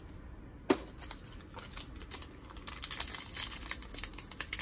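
Plastic wrapper of a Donruss football card pack being torn open and crinkled by hand: a sharp tick under a second in, then a run of crackling that grows louder toward the end.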